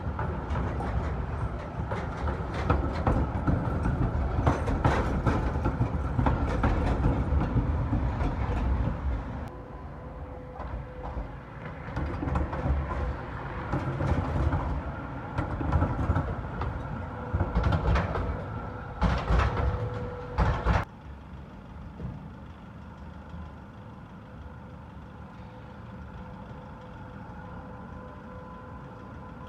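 Articulated electric trams rolling past on street track: a low rumble with repeated sharp clacks and knocks from the wheels over the junction's rails. About two-thirds of the way through the rumble cuts off suddenly, leaving a quieter, steady street hum.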